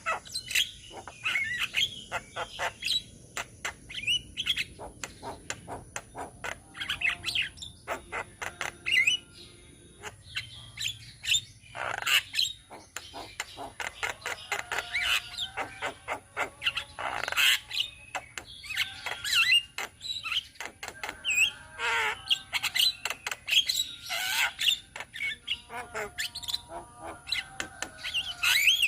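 A group of Javan mynas (jalak kebo) calling together in a busy chatter of quick whistles, squeaks and clicking notes, with short lulls between bouts.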